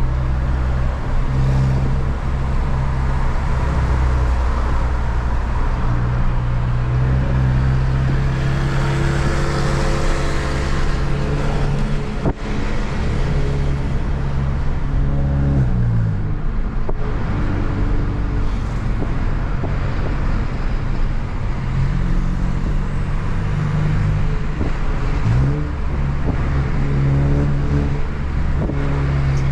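Volkswagen Jetta TSI's turbocharged engine, Stage 2 tuned with a downpipe, pulling hard under full throttle. Its steady engine note shifts in pitch twice, around the middle and again late on, as it changes gear.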